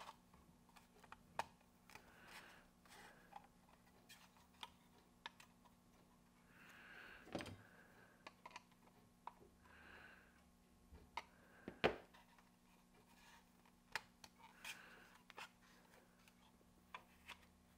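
Near silence with scattered faint clicks and taps, the two loudest about seven and twelve seconds in: a 3D-printed AC vent diverter door and its aluminium rod linkage being worked by hand.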